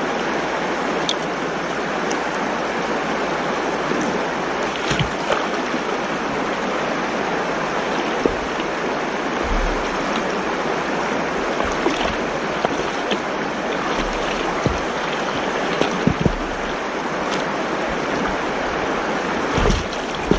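Shallow river rushing steadily over rocks close to the microphone, with scattered knocks and splashes from boots wading and kicking up the gravel bed. The splashes come louder and closer together near the end.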